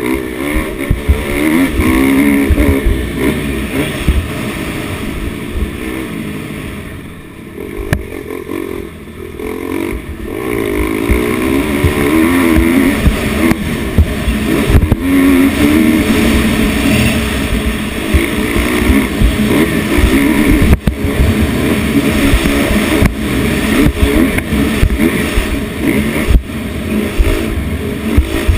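Motocross dirt bike engine, heard from on the bike while it is ridden round a dirt track: the revs rise and fall with the throttle, ease off from about five to ten seconds in, then pull hard again and stay high through the rest.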